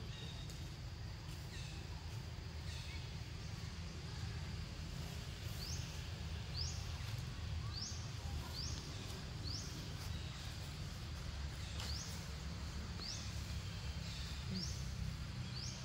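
A bird repeating a short, high chirp that sweeps upward, about once a second, over a steady low rumble.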